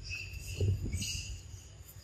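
Steady high-pitched insect calls from the surrounding forest, with a low bump or rustle close to the microphone a little after the start, the loudest moment, and a short crackle about a second in.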